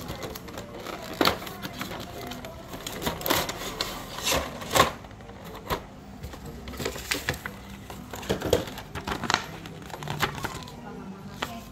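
Hands unpacking a model kit: the cardboard box and clear plastic parts tray handled with irregular clicks, taps and crinkles, and a paper instruction sheet rustling.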